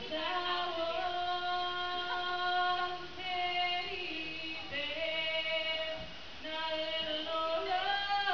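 A woman singing unaccompanied into a microphone, holding long notes in phrases of a few seconds, with short pauses between them.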